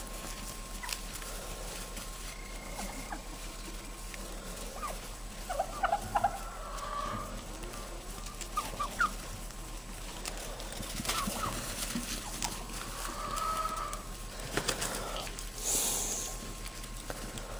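Domestic turkeys calling with short, high, often rising yelps and peeps every second or two, loudest in a cluster a few seconds in. A brief rush of hissing noise comes near the end.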